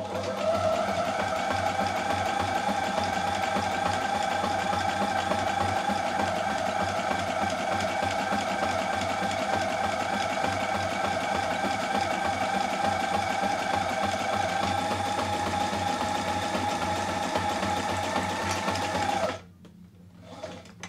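Portable walking-foot sewing machine straight-stitching through nine layers of cloth, running at one steady speed without straining, then stopping about a second before the end.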